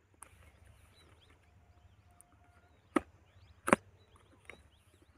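Small cardboard product box being handled and opened: two sharp clicks about three and three and a half seconds in, the second the louder, and a softer one shortly after.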